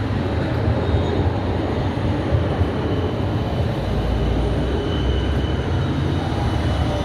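Bern tram running: a steady low rumble with a faint high whine held throughout.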